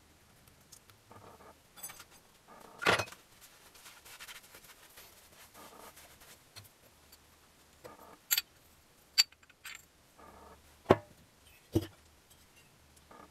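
Metal engine parts and tools being handled during hand assembly of a motorcycle engine. Five or so short, sharp clicks and clinks, the loudest a few seconds in, come over quiet rustling.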